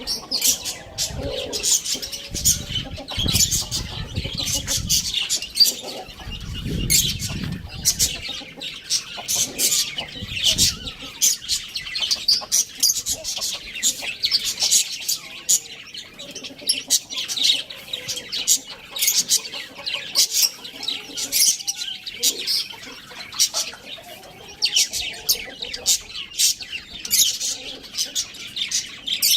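Many small birds chirping rapidly and continuously, a dense chatter of short high chirps. Low rumbling runs under the chirps for the first eight seconds or so.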